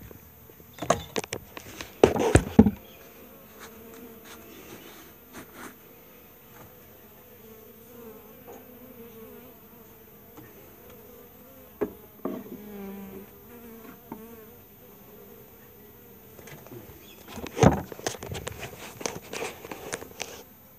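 Honeybees buzzing around an opened nuc hive in a wavering drone. Loud knocks and rustling from the camera and tripod being handled come about two seconds in and again near the end.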